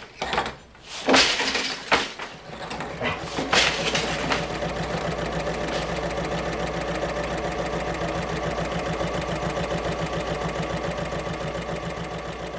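Wooden floor loom being worked: a few sharp knocks of the beater and shuttle. From about four seconds in, a sewing machine stitching at a steady, fast, even rhythm, fading toward the end.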